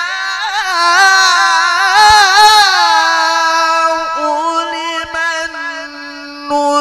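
A male qari reciting the Quran in the melodic tilawah style, one long, ornamented sung phrase with wavering pitch runs over the first half, then a steadier held note.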